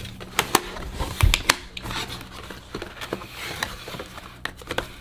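Cardboard packaging handled as a box is opened: paper-and-card rustling and sliding, with scattered sharp taps and clicks, the strongest in the first two seconds.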